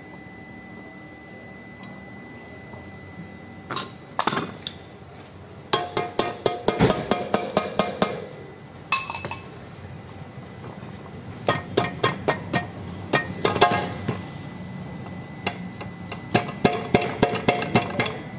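Bursts of quick metallic clicks and clinks, several a second, from metal gearbox casing and parts being handled and fitted together. The bursts start about four seconds in and come again in several runs.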